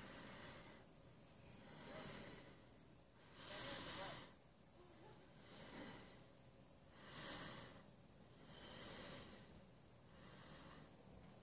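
Faint, slow breathing close to the microphone: soft, breathy swells about every two seconds.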